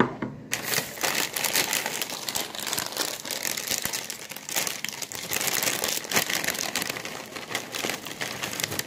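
Loud, continuous crinkling and rustling right at the microphone, dense with small crackles, starting about half a second in and stopping near the end.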